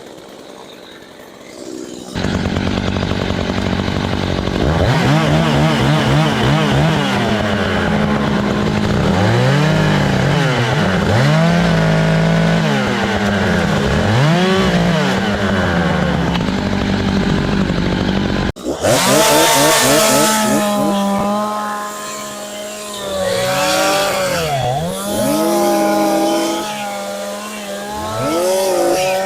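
Gas chainsaw running, its engine pitch rising and falling again and again as the throttle is worked through a cut. It starts up loud about two seconds in, drops out abruptly about two-thirds of the way through, and picks straight up again.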